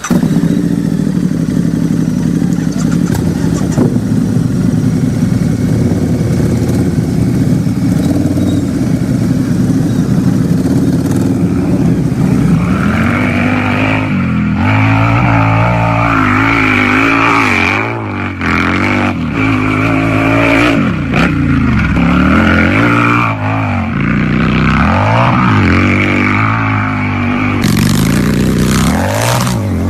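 Harley-Davidson V-twin motorcycle engine idling steadily for about twelve seconds, then revved again and again, its pitch rising and falling with each blip of the throttle.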